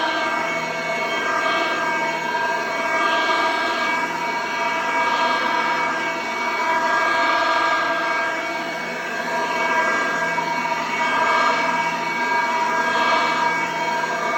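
Vintage Oreck XL 4000 vacuum cleaner running steadily with a high motor whine, its rushing airflow swelling and easing every second or two.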